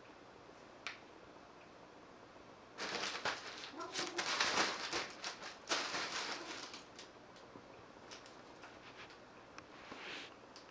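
Fabric cat tunnel rustling as a cat pushes into it: a noisy burst of about four seconds starting about three seconds in, with a single click before it and a shorter rustle near the end.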